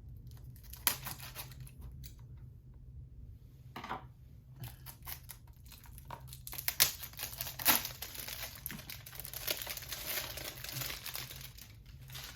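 Plastic shrink-wrap being torn and peeled off a Blu-ray case: a few sharp snaps at first, then steady crinkling and crackling of the film for the second half, with two loud snaps in the middle.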